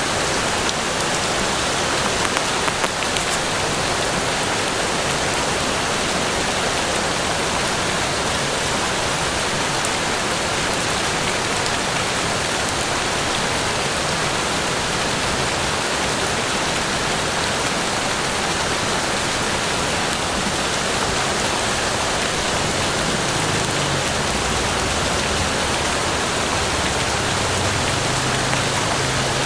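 Steady rain falling, a dense even hiss of drops. Near the end a low rumble of distant thunder starts to build.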